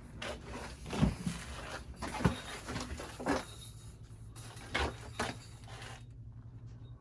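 A few dull knocks and rubbing, scuffing noises, like things being handled or moved about, over a steady low hum; it goes quieter near the end.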